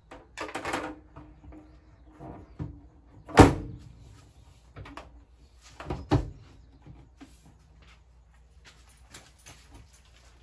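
Matte-black wrapped bonnet cowl of a Morgan 3 Wheeler being fitted back on by hand: a scraping rustle near the start, then a sharp knock about three seconds in and a second clunk about six seconds in as the panel is set and pressed into place, with a few light taps after.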